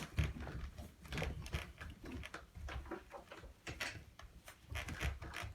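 Two cats scuffling on a cat tree: irregular thumps and bumps against the tree with scrabbling claw scratches, in quick uneven bursts throughout.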